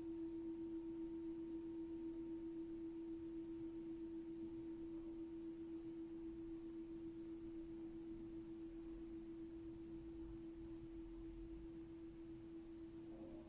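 A meditation bell's single low tone ringing on and slowly fading, with a slight wavering pulse. A faint higher overtone dies away in the first few seconds.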